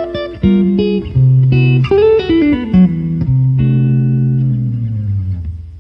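Guitar outro music: plucked notes over a bass line, with a note sliding down in pitch about two seconds in, then held low notes fading out at the end.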